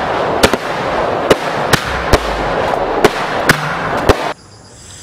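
Aerial fireworks bursting: about six sharp bangs over a continuous dense crackling. All of it cuts off abruptly a little over four seconds in.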